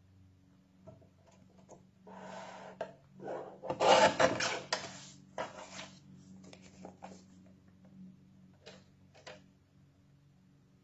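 Kraft paper bag being slid into place and cut on a lever-arm guillotine paper trimmer: paper rustling against the trimmer bed, then a louder burst of paper and blade-arm noise about four seconds in, followed by a few light clicks and taps as the pieces are handled.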